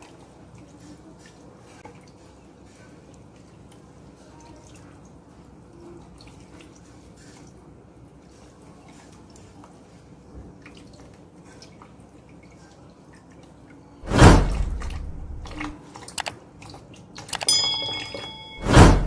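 Faint trickle of tap water running and dripping into a stainless-steel sink as raw chicken is rinsed under it by hand. About fourteen seconds in, loud sudden editing sound effects from a subscribe-button animation start: a whoosh, clicks and a short ringing tone, then another loud whoosh near the end.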